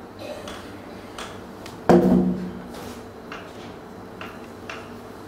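Light rustling and small taps as a baby macaque handles a cloth and a person's feet on a tiled floor, with one sudden loud knock that rings briefly about two seconds in.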